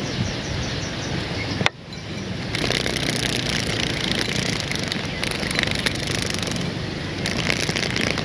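Large insect's wings buzzing and fluttering close to the microphone, with rustling. A sharp click comes just before two seconds in, followed by a brief quieter moment.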